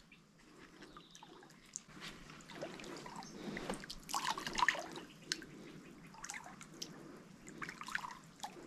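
Water dripping and splashing lightly at the river's surface in irregular small drops, busier about two to five seconds in.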